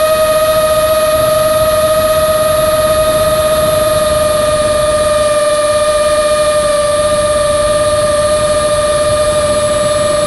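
FPV quadcopter's brushless motors and propellers whining at a steady throttle, the pitch sagging slightly, with rushing air underneath as heard from the onboard camera.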